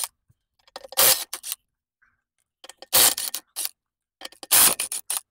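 Hand tools working at a car's rear wheel: three loud bursts of sharp metallic clicks and clanks, about a second and a half apart.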